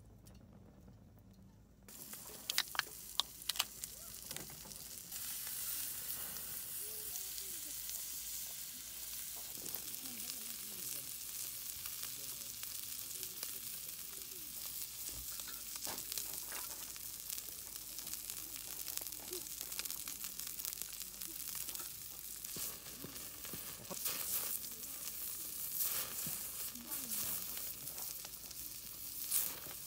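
Meat sizzling on a hot griddle plate over a small wood-burning stove. The sizzle starts suddenly about two seconds in, with a few sharp clicks just after, then goes on steadily.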